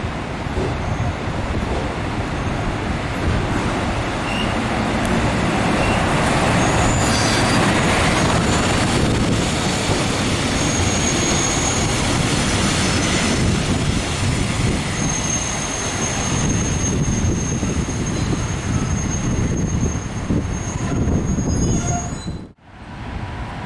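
MÁV class 117 (Bzmot) diesel railcar rolling in along the platform, with a steady rumble of engine and wheels on the rails. A thin, high wheel squeal comes in twice in the second half, the longer one lasting several seconds.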